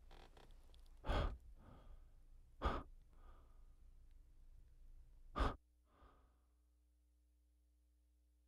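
A person breathing close to the microphone: three short, sharp breaths, each followed by a fainter one, then quiet with only a faint steady hum from about five and a half seconds in.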